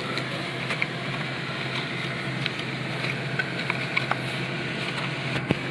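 Steady background hum and hiss, with scattered faint clicks and light taps of a cardboard headphone box and its packaging being handled.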